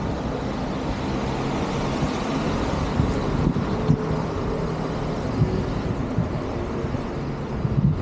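Road traffic: a steady wash of vehicle noise with a constant low engine hum.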